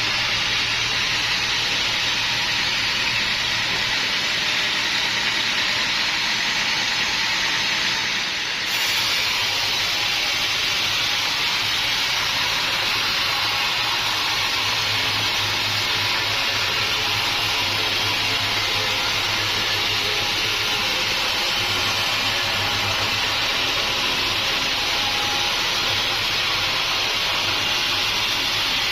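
Sawmill machinery running steadily: a constant loud hiss over a low motor hum, with a brief dip about eight seconds in.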